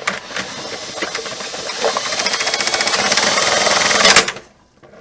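Milwaukee drill spinning a drain snake cable down a clogged laundry tub drain. It runs for about four seconds, getting gradually louder, then stops suddenly.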